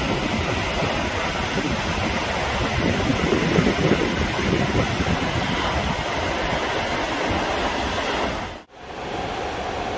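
Water pouring over a dam's crest spillway gates in thin sheets, the 'sudare' (bamboo-blind) release: a steady, loud rushing of falling water. The sound drops out for a moment near the end and comes back with a slightly different tone.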